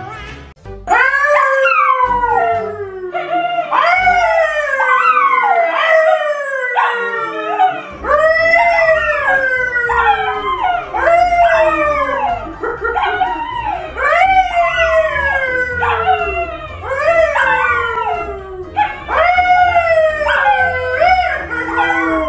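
Two dogs, a yellow Labrador and a brown poodle, howling together with a man who howls along with them. Starting about a second in, the howls come over and over and overlap, each one falling in pitch.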